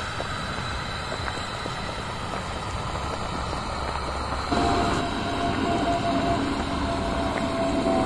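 Broth boiling hard in a wide metal pan over a gas burner: steady burner noise with bubbling. It gets louder about four and a half seconds in.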